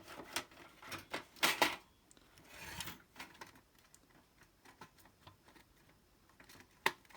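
Plastic clicks and knocks from working at the stuck plastic top cover of an Xbox 360 E console to pry it loose. There is a short scrape about three seconds in and a sharper click near the end.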